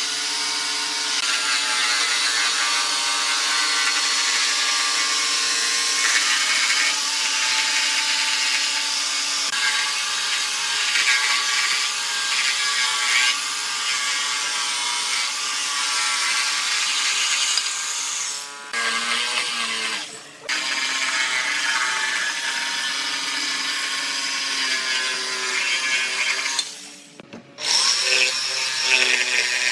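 Dongcheng DMQ85 electric jigsaw running and cutting a curve through a pine board: a steady motor whine with the blade rasping through the wood. It drops out briefly twice in the second half and for about a second near the end, then resumes.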